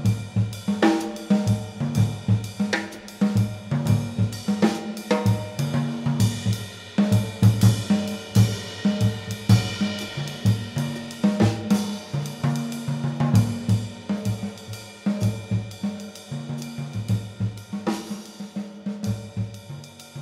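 Contemporary jazz guitar trio playing: a busy drum kit with ride cymbal, hi-hat and snare strokes over a moving double bass line. Bright guitar chords sound now and then, about a second in, near five seconds, past eleven seconds and near eighteen seconds.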